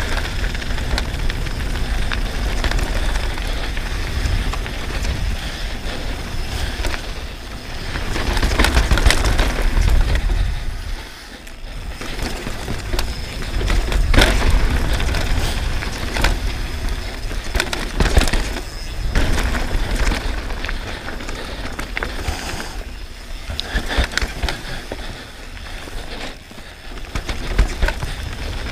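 Downhill mountain bike ridden fast down a dirt flow trail: tyres rolling over dirt and gravel, chain and suspension rattling, and sharp knocks over bumps and drops, with wind buffeting the microphone. The noise drops away briefly about eleven seconds in, and a loud knock comes about fourteen seconds in.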